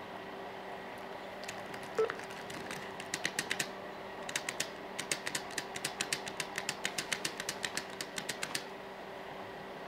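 Laptop keyboard keys tapped quickly and unevenly by a small child's fingers, in runs of several clicks a second that start about a second and a half in and stop shortly before the end. A single louder thump comes about two seconds in, over a faint steady hum.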